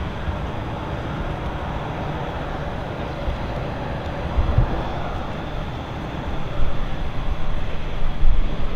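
Airbus A350-1000's two Rolls-Royce Trent XWB turbofans running as the airliner climbs away: a steady jet roar over a deep rumble, getting louder in the last couple of seconds.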